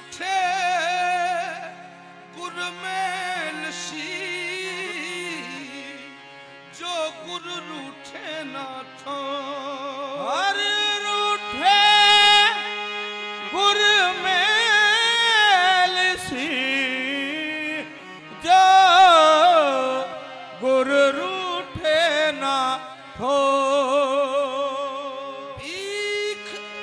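Qawwali music: a male lead singer sings long phrases with wavering, ornamented pitch over harmoniums, whose held notes sound steadily underneath.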